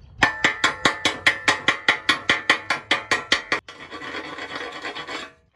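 Slag being chipped off a fresh stick-weld bead on steel: quick, even metal taps, about five a second. Near the middle the tapping gives way to a wire brush scrubbing the bead for about a second and a half.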